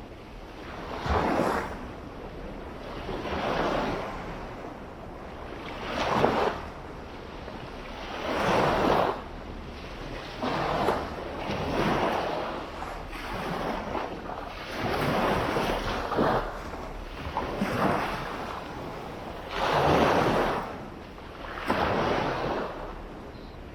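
Small waves breaking on a beach and washing up the shore, one after another about every two seconds, each rising and falling away.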